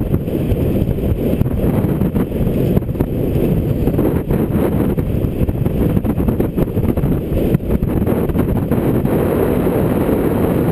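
Wind buffeting a GoPro's microphone as a bicycle coasts fast downhill: a loud, steady low rush.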